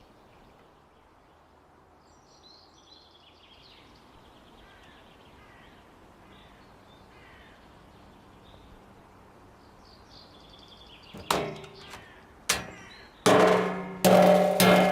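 Quiet outdoor background with a few faint bird calls. In the last few seconds comes a series of loud, sharp strikes, each ringing out, the later ones carrying sustained tones.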